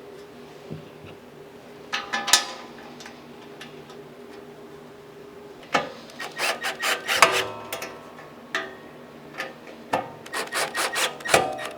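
Screws being driven by hand into the steel panels of a welding cart: scraping turns and sharp metal clicks, a short cluster about two seconds in and a longer run from about six seconds on.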